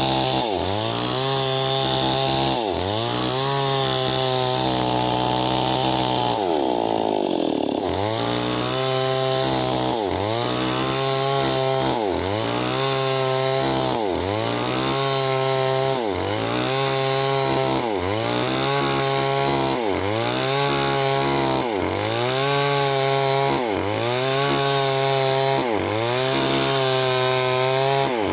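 Stihl MS 381 two-stroke chainsaw ripping a meranti log lengthwise into planks under full throttle, its engine note dipping under load and recovering about every second and a quarter. About seven seconds in, the cutting noise lets up briefly and the engine note sags before the chain bites back in.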